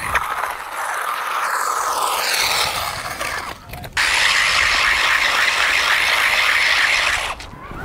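Brushless electric motor of a 1/14-scale RC buggy whining as it drives. First the whine falls in pitch as the car slows. After a short break the car runs flat out on rough tarmac: a louder, steady high whine with tyre rush, cut off sharply near the end.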